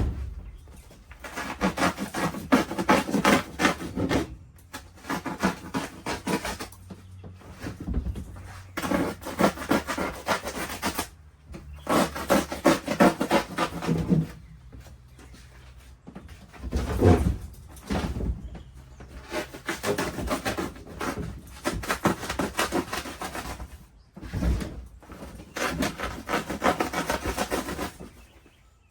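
Knife sawing through duct insulation in several rasping passes of two to three seconds each, with a few low thumps between them.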